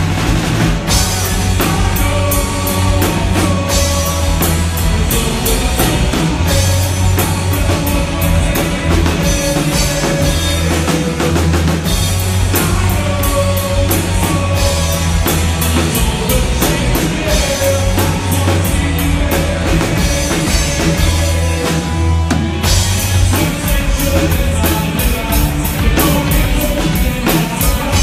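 Rock band playing live: electric guitars over a drum kit keeping a steady beat, with a heavy bass end.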